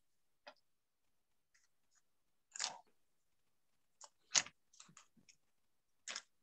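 Scattered short crackles and clicks from handling fly-tying tools and materials at the vise, heard over a video call; the loudest click comes a little after four seconds in.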